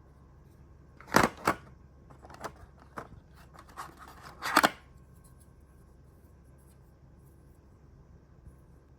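A few sharp clicks and knocks of small hard parts being handled: a pair about a second in, a couple of single ones, then a louder cluster just before the middle.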